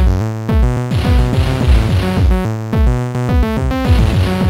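Amiga demo intro music: electronic synthesizer chords and bass over a fast drum-machine beat of repeated kicks.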